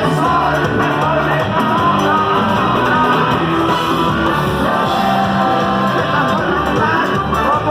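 Loud rock-style music with guitar and singing, playing steadily.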